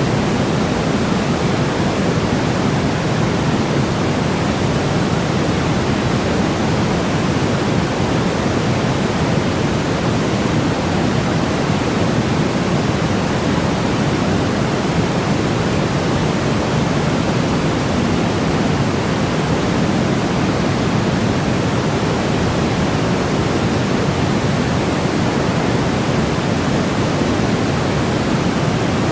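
Steady, unchanging sleep noise: an even rushing hiss, weighted toward the low end, deeper than a thin white-noise hiss.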